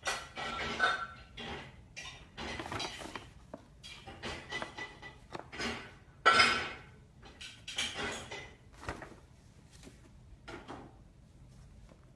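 Irregular clattering and scraping of hard objects, like dishes or a metal bowl being knocked about, with the loudest clatter a little past the middle.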